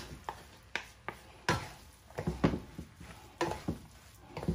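Wooden spatula scraping and knocking against a nonstick pan while chopped meat is stirred and tossed, in irregular strokes of one to three a second.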